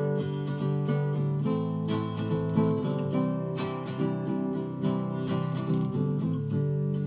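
Solo acoustic guitar strumming chords at a steady pulse: the instrumental opening of a song, before the vocal comes in.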